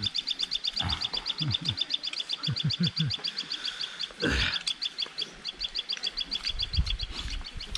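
A small animal calling outdoors: a high, rapid trill of evenly spaced pulses, about nine a second, that stops near the end. Low voice sounds under it, and a short noisy burst about four seconds in.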